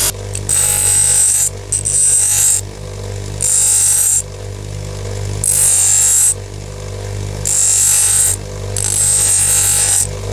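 Electric grinding/sanding wheel running steadily, with about six grinding passes, each roughly a second long, as a workpiece is pressed against the spinning wheel and drawn away again.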